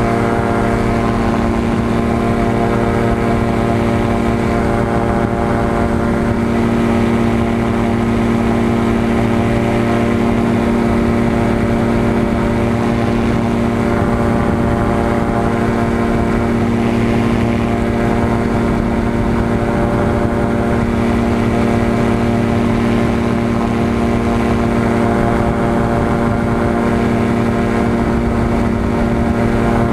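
Aerolite 103 ultralight's engine and pusher propeller running steadily in flight, with wind rushing past the open cockpit.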